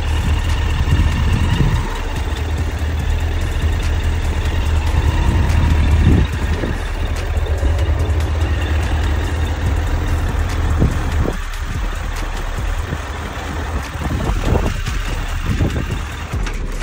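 Suzuki GSF1200S Bandit's carbureted inline-four engine idling warm at about 1000 rpm, running evenly with no sneezing, a sign of no vacuum leaks. Its low hum drops away about eleven seconds in.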